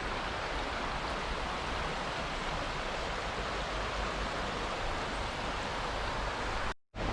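Steady rushing of flowing water from a creek and waterfall, an even hiss with no distinct events. It cuts out to silence for a moment near the end.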